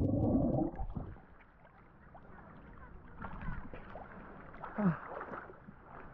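Sea water splashing and sloshing as a swimmer goes into the sea. It is loud for about the first second, then settles to quieter lapping and gurgling.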